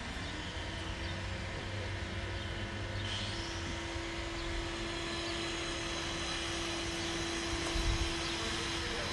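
A steady distant engine drone holding one constant pitch, over an outdoor background hiss, with a brief low thump near the end.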